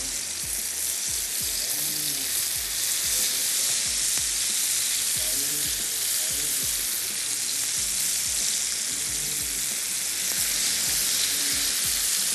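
Marinated chicken breast pieces sizzling steadily in a hot oiled grill pan.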